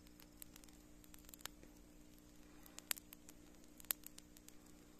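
Faint crackling of a smouldering pile of dry weeds and sweet potato vines, the fire creeping through the inside of the heap: scattered sharp ticks and pops, the loudest about three and four seconds in, over a faint steady hum.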